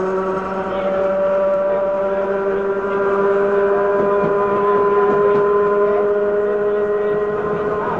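Sydney 'wooden' Bradfield electric motor car running under way, its traction motors and gears giving a steady multi-tone whine that rises slowly in pitch as the train picks up speed.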